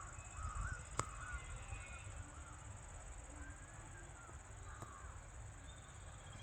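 Birds calling, a series of short wavy calls, with a single sharp click about a second in, over a steady high hum.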